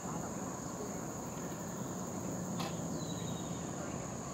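Insects singing in a steady, unbroken high-pitched buzz over a low background rumble, with a single sharp click about two and a half seconds in.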